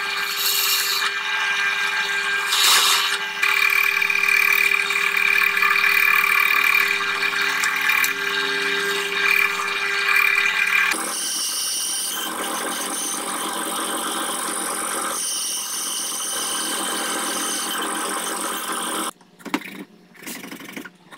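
Bench drill press running, its bit boring into a small hardwood block: a steady motor whine with a high squeal over it, shifting to a different steady pitch about halfway through. Near the end, a few short scraping strokes of a hand file on the wood.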